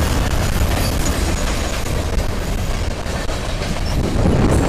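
Freight train cars, tank cars and a boxcar, rolling past close by: a steady noise of steel wheels on the rails that grows louder near the end.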